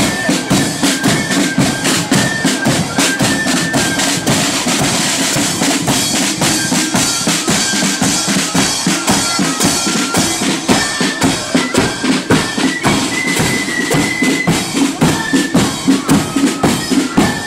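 Marching flute band playing a tune: shrill flutes carrying a stepping melody over a steady, driving beat of side drums and bass drum.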